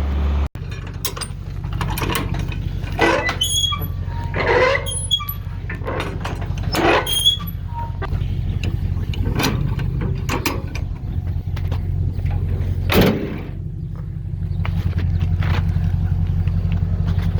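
A vehicle engine running steadily, with short squeaks and clanks at irregular intervals over it.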